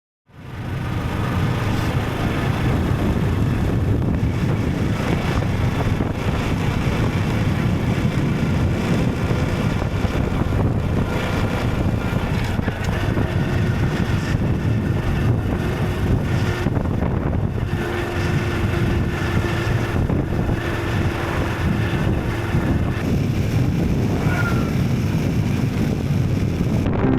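Wind rushing over the microphone of a moving motorcycle, with a Honda CT125 Hunter Cub's small single-cylinder engine running underneath; it fades in from silence just at the start and then holds steady.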